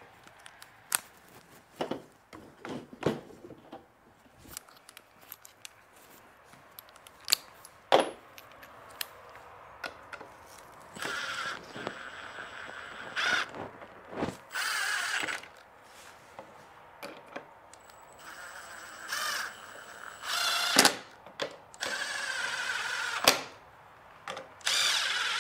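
A few scattered knocks and clicks, then from about eleven seconds in a cordless drill runs in several short bursts of a second or so, driving screws into a plywood plate.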